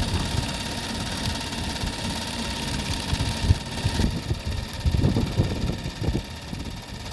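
Super 8 film projector running with a fast, steady mechanical clatter and whine, over a low rumble of wind on the microphone.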